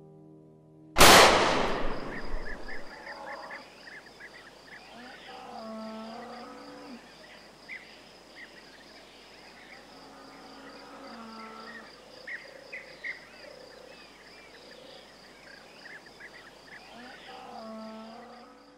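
A single pistol gunshot about a second in, from a Luger, very loud and dying away over about a second; it cuts off the piano music. After it comes a steady high-pitched ringing tone with faint chirping and wavering sounds.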